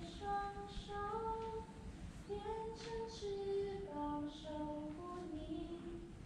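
A woman singing a slow, gentle melody solo, in held notes that step up and down about every half second, heard faintly across the theatre.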